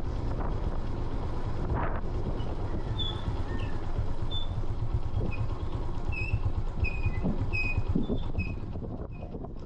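Steady low rumble of wind on the microphone, with a run of short high chirps from about three seconds in; the rumble eases near the end.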